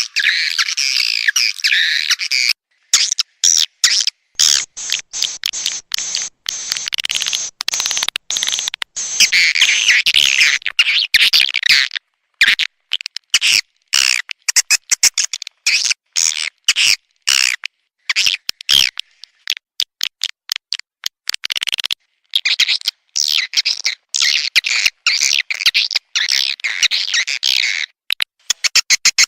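Recorded swiftlet calls played as an external lure sound for swiftlet farming: dense, high twittering chirps in choppy bursts that start and stop abruptly, with short gaps between.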